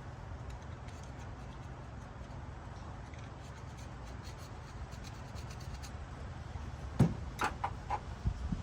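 Hands handling engine parts during a head-gasket job: faint rubbing and scraping over a steady low background rumble, then a sharp knock about seven seconds in and a few short clicks near the end.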